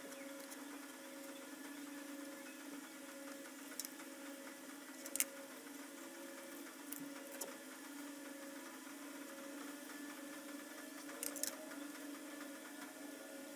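A steady low mechanical hum, with a few sharp clicks and taps from PVC-pipe rollers and wire being handled on a plastic bucket.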